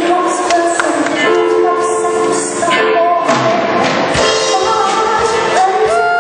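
Junior vocal group singing a pop song in close harmony, several voices holding and gliding between notes together.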